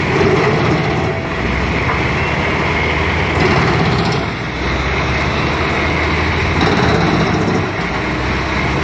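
Pezzolato wood chipper running at working speed, its engine and chipping drum making a loud, steady mechanical noise as chips blow out of the spout. The level dips briefly a few times as the load on the machine changes.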